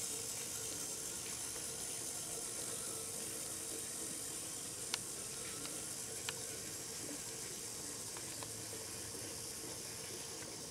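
Small four-wheel model diesel locomotive running along its track: a faint steady motor hum under an even hiss, with two sharp clicks around the middle.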